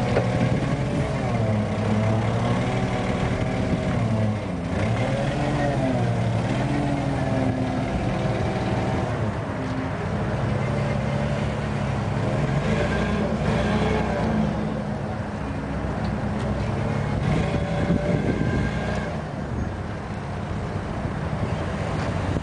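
Propane-fuelled Yale GLP110 forklift engine running, its pitch rising and falling as it is revved while the truck is driven, steadier for a stretch in the middle.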